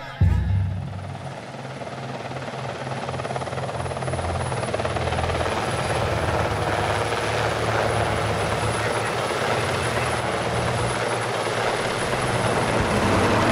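Helicopter rotor and turbine engine noise: a steady rushing sound over a low rotor beat. It cuts in abruptly just after the start and grows slightly louder near the end.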